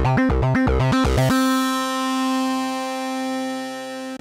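Modal Electronics Cobalt 8X virtual-analogue synthesizer playing a factory preset. A held note pulses with deep bass about five times a second. About a second in, the pulsing stops and one bright sustained note rich in overtones rings on, cutting off sharply at the end.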